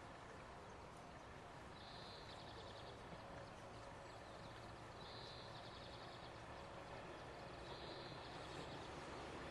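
Faint rumble of a distant 413/475 series electric train approaching, growing slightly louder toward the end. A short, high, buzzy trill repeats about every three seconds over it.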